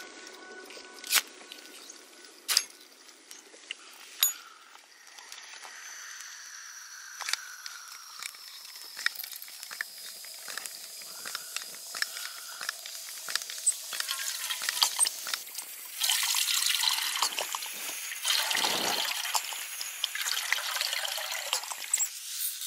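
A ferro rod strikes several times, sharp clicks in the first few seconds, lighting the priming fuel of an MSR liquid-fuel stove. The priming flame then burns with a faint hiss and small crackling ticks. From about two-thirds of the way in, a louder rushing sound of water pouring from a bottle into a metal pot takes over.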